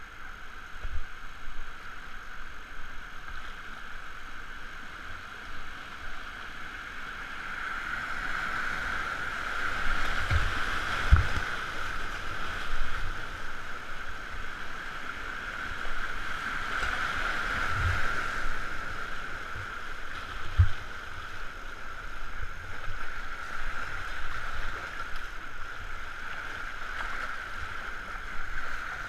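Whitewater river rapids rushing and churning around an inflatable canoe. The noise swells twice, about a third of the way in and again past halfway, as the boat runs through rougher water. A few short dull thumps of water striking the boat come through.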